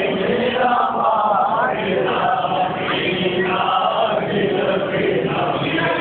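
Many voices chanting together in a continuous devotional recitation, their lines rising and falling without a pause.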